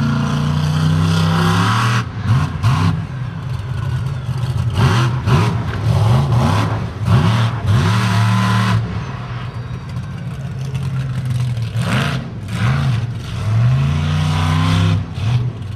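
Bigfoot 2 monster truck engine revving hard and repeatedly, its pitch swooping up and down in quick bursts, with a steadier run in the middle and more revving near the end.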